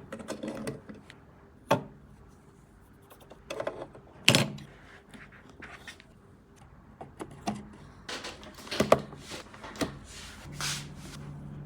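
Computer parts being handled during a PC build: scattered clicks, taps and rubbing, with sharp clicks about two seconds in, about four seconds in and near nine seconds. A low steady hum comes in near the end.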